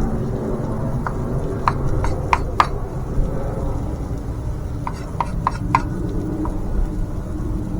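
Sharp taps and clicks of kitchen utensils on a hard cooking or cutting surface, in two quick clusters of four or five, over a steady low rumble.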